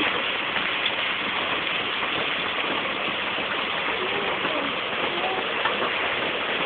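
Steady hiss of rain falling on the ground and the car.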